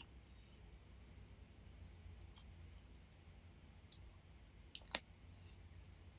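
A few light clicks of small plastic figure pieces being handled, the sharpest about five seconds in, over a faint low hum.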